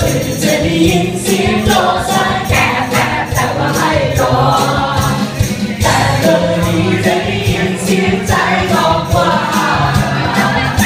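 Upbeat dance music with a singer over a steady beat.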